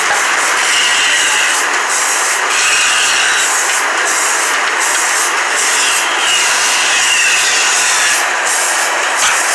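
Large band saw running steadily as a wooden block is fed through the blade. The cut adds a high whine that rises and fades several times.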